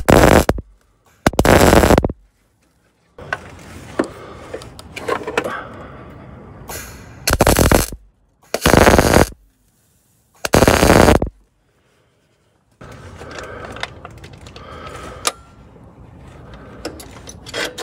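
MIG welder arc crackling in five short bursts of under a second each, laying carbon-steel weld wire onto a broken exhaust manifold stud in an aluminum engine block to build it up. Quieter scraping and clicks fill the gaps between bursts.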